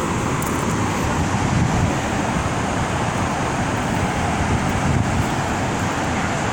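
Water rushing out through open flood gates, a loud, steady, unbroken noise.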